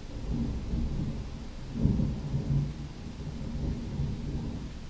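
Thunder rumbling, swelling to its loudest about two seconds in and rolling on, heard from inside a moving car.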